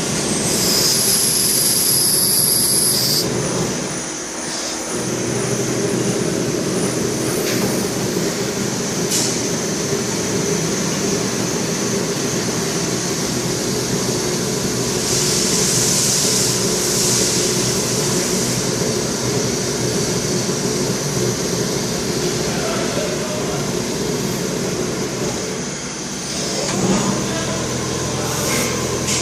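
Hanwha XD26H CNC Swiss-type sliding-headstock lathe running a machining cycle: a steady mechanical hum, with bursts of high hiss near the start and about halfway through.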